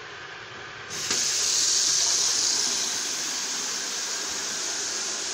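Kitchen mixer tap turned on about a second in, water then running hard into a stainless-steel sink with a steady hiss, loudest just after it starts.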